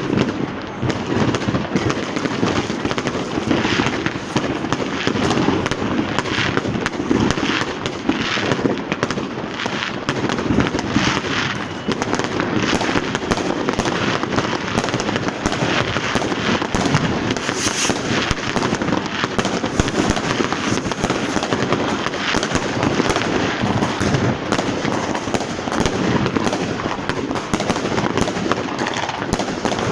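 Dense, continuous crackling and banging of many consumer fireworks and firecrackers going off at once, the bangs overlapping with no let-up.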